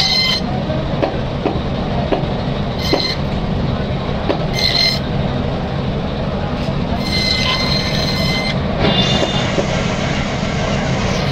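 Electric band saw running with a steady hum while it cuts carp into steaks. A high squeal sounds whenever the blade bites through the fish: briefly at the start, again about three and four and a half seconds in, then longer through the last four seconds.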